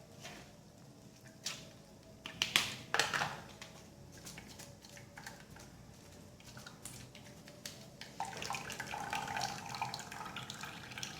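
Blended lemon juice being strained through a sieve: liquid trickling and dripping, with a few sharp clicks and knocks in the first few seconds. The flow grows louder and fuller about eight seconds in.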